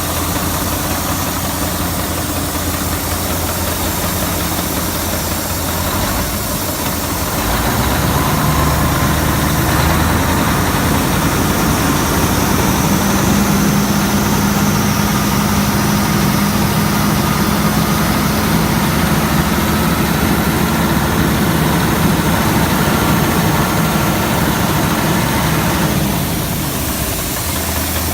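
Renault Magnum 560's 16.4-litre Mack E9 V8 diesel idling, then revved up about seven seconds in and held at raised revs with a thin turbo whistle above the engine note, dropping back to idle near the end.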